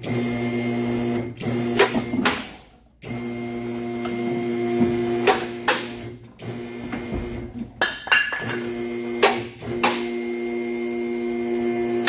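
Car lift's electric hydraulic pump motor running in about four short bursts, each a steady hum that starts and stops abruptly, as a Datsun inline-six engine is hoisted out of the bay on chains. Several sharp knocks and clanks fall between and during the runs.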